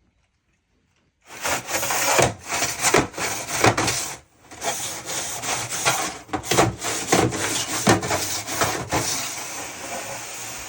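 Irregular scraping and rubbing inside a dryer vent duct as it is cleared of lint and debris, starting about a second in, with a short pause a little past four seconds in.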